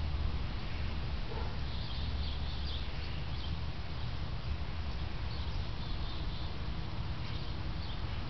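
Outdoor ambience: a steady low rumble, with faint high bird chirps coming in a few short clusters.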